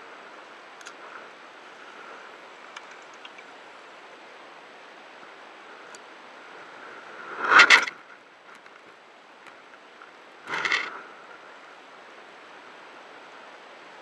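Steady sea and wind noise around a small open boat, with two loud short rushes of sound, the first a little past halfway and the second about three seconds later.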